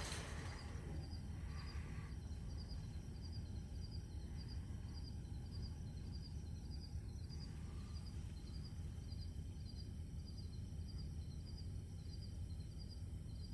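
Quiet outdoor ambience: a low steady rumble, with a small high chirp repeating evenly about three times every two seconds.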